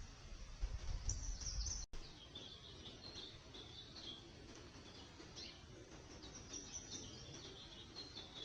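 Wild birds chirping, a scatter of short high notes, faint. A low rumble under them stops abruptly about two seconds in.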